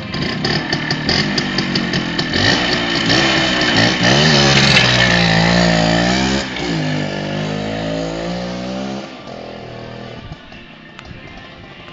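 Minsk motorcycle's freshly overhauled single-cylinder two-stroke engine being revved: the pitch climbs and stays high for a few seconds, dips, holds, then falls away much quieter about nine seconds in.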